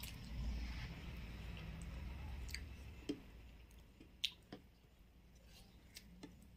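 Close-up chewing and wet mouth sounds of a mouthful of rice and fried bitter gourd, eaten by hand. A handful of sharp clicks come through the middle, the loudest two a little after three and four seconds in, as fingers scrape food together on the plate.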